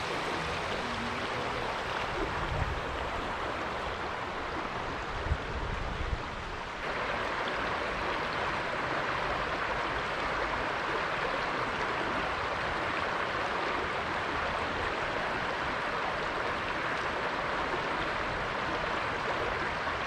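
Shallow creek riffles rushing steadily over rocks, growing a little louder about seven seconds in. A few brief low thumps sound in the first six seconds.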